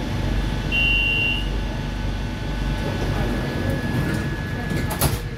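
Inside a Madrid Metro car standing at a platform with its doors shut: a steady low hum of the train's equipment, a short high beep about a second in, a thin steady whine from about two and a half seconds, and a sharp clunk near the end.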